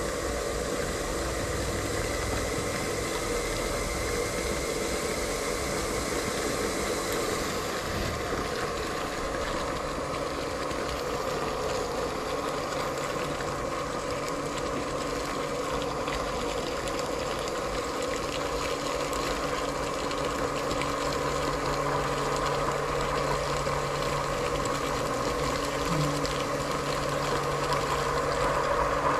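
Borehole well's deep-suction water pump running steadily with a constant mechanical hum, flushing soapy water out of the well pipe. A high hiss over it drops away about seven seconds in.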